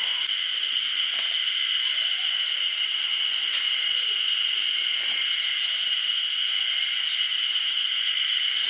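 Insect chorus: a steady, unbroken high-pitched buzzing drone, with a few faint light ticks over it.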